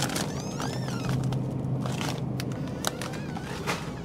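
Supermarket background: a steady low hum, with a few short high squeaks in the first half and several light clicks and knocks later on.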